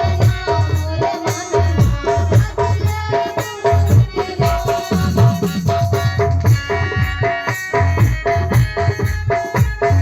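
Song music with a steady, driving beat of drums and percussion under melodic instruments.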